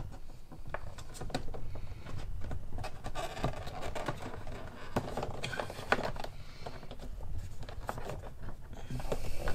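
Hands handling wiring and the plastic door-panel trim of a car door: scattered clicks, scrapes and rustles as the LED light-strip wires are tucked behind the panel.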